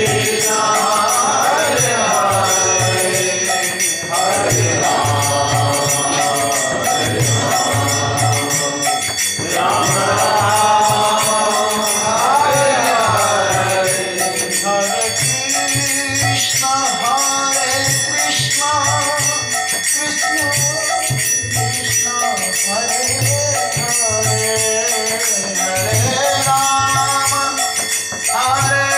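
Kirtan: a man sings a devotional chant to the regular deep bass strokes of a mridanga drum, over a steady metallic ringing like hand cymbals. The melody changes about halfway through.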